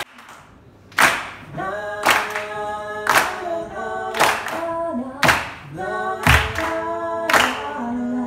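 A slow sung melody, led by a woman's voice through the PA, begins about a second in, with hand claps keeping time about once a second.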